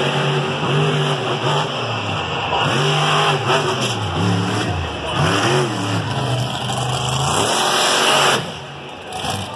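Monster truck engine revving up and down repeatedly as the truck drives over crushed cars. Its pitch rises and falls several times, then the sound drops away suddenly near the end.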